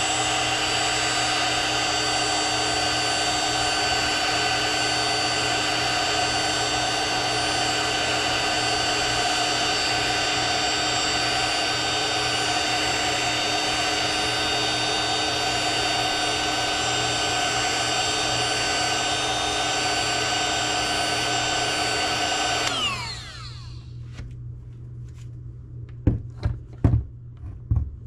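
Heat gun running steadily, its fan and element heating a solder seal sleeve on a twisted wire joint so the sleeve shrinks and the solder bead melts. About 23 seconds in it is switched off and its fan winds down, followed by a few clicks and knocks from handling.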